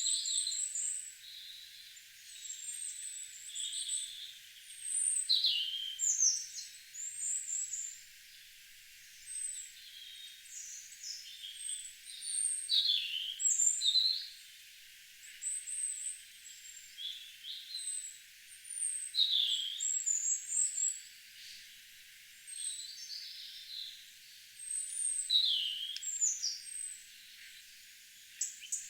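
Garden songbirds singing: a continuous run of short high chirps and quick downward-sliding whistled notes, one phrase following another every second or so.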